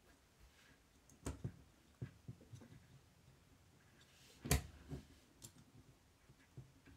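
Light scattered clicks and knocks of an Aiwa AD-F410 cassette deck's metal transport mechanism being handled as a drive belt is worked onto its flywheel, the sharpest knock about four and a half seconds in.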